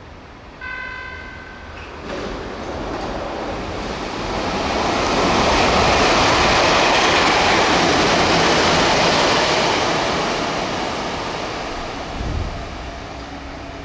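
Meitetsu express train passing through a station at speed: a rush of wheel and air noise builds over a few seconds, stays loud, then fades away. About a second in, a brief tone with several pitches sounds.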